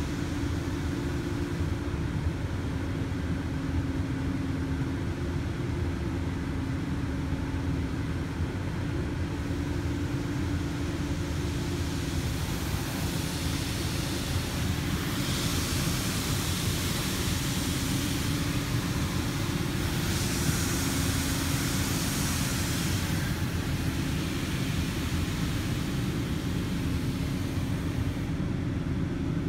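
Automatic car wash heard from inside the car: a steady low rumble and hum of the wash machinery, with water spray hissing on the glass and body. The hiss grows heavier for several seconds in the middle.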